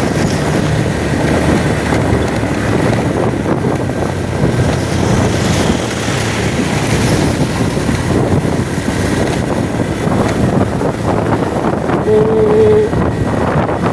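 Steady rush of wind on the microphone over the running noise of a moving vehicle, with a short steady tone about twelve seconds in.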